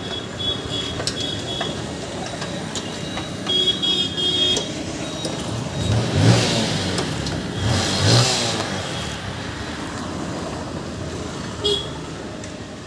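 Road traffic: two motor vehicles pass, about six and about eight seconds in, the loudest sounds here. Under them are scattered small metallic clicks of hand work on a motorcycle's fuel tap.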